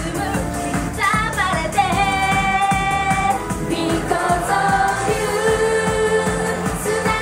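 Japanese idol pop song performed live: a woman singing into a microphone over a pop backing track with a steady beat, with a sung line gliding down about a second in, then a long held note.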